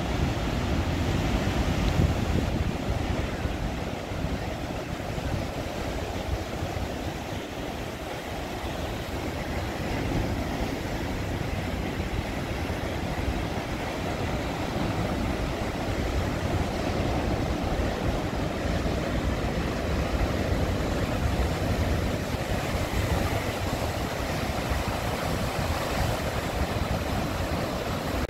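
Heavy Pacific storm surf, 25- to 30-foot waves, crashing and churning over a rocky shore: a continuous noise with a deep rumble underneath, a little louder about two seconds in.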